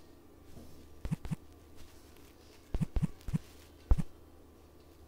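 Six soft fingertip taps on a Samsung smartphone's touchscreen as a code is typed on the on-screen number keyboard, some in quick pairs, over a faint steady hum.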